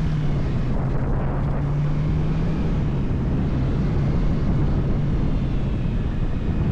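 Bajaj Dominar 400's single-cylinder engine running steadily while under way. It makes a low, even drone with a rushing noise over it, like air moving past.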